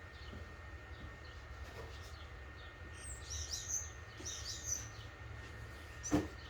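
Birds chirping faintly in the background, a cluster of short high calls about three to five seconds in, over a low steady hum. A single sharp knock comes near the end.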